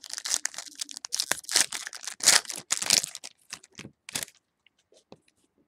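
Foil trading-card pack wrapper crinkling and tearing as the pack is opened and handled, for about four seconds. A few light clicks of cards being handled follow.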